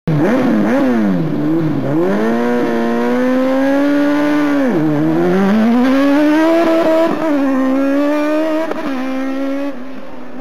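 Small single-seater formula race car's engine revving hard as the car pulls away: a few quick blips, then the pitch climbs and drops sharply twice, about five and about seven seconds in, before holding steady and fading as the car moves off near the end.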